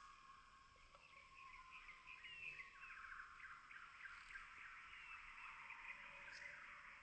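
Faint birdsong: several small birds chirping and trilling at once, with a rapid trill about two and a half seconds in.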